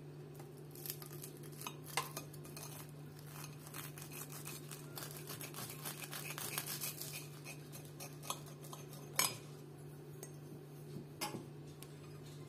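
A table knife sawing through crisp grilled toast on a ceramic plate: crackly crunching and scraping, with a few sharp clinks as the blade knocks the plate, the loudest a little after nine seconds in. A steady low hum runs underneath.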